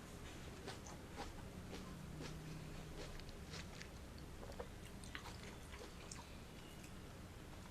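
Close-miked eating of fresh fruit: wet chewing and biting, with small crisp clicks and smacks scattered irregularly throughout.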